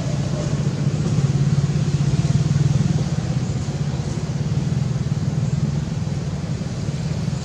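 Low, steady hum of a motor vehicle's engine, growing louder over the first few seconds and then easing off.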